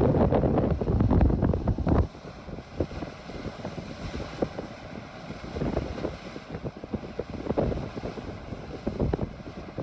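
Wind buffeting the microphone over the rush of white water streaming along the hull of a Scorpio 72 sailing yacht moving fast through rough sea. The wind blasts are heaviest in the first two seconds, then ease to a gusting rush.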